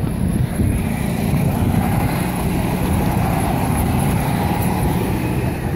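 Go-kart engines running as two rental karts drive past on the track, their engine note strongest in the middle of the pass over a steady low rumble.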